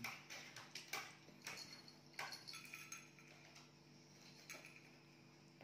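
Faint scattered clicks and light taps, most of them in the first two seconds, over a steady low hum.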